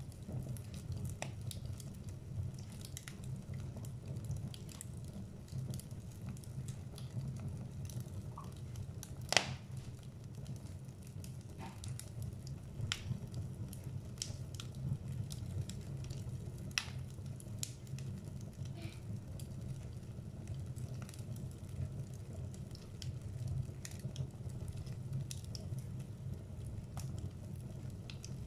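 Wood fire burning in a fireplace: scattered crackles and pops from the burning logs over a steady low rumble, with one sharp, much louder pop about nine seconds in.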